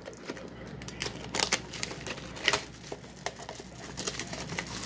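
Clear plastic shrink-wrap being torn and peeled off a cardboard trading-card box, crinkling in short irregular crackles. The sharpest rips come about a second and a half and two and a half seconds in.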